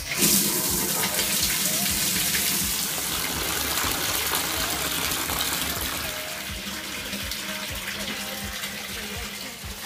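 Water running from a bathtub faucet into the tub: a steady rush that starts suddenly and eases slightly over the last few seconds.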